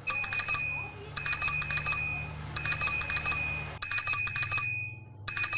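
Telephone ringing: a loud electronic trilling ring in five bursts, about one every second and a bit.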